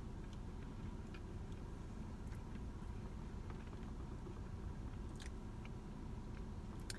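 Quiet chewing and mouth sounds of someone eating spaghetti, with scattered faint clicks of a fork against a plastic takeout bowl, over a low steady rumble.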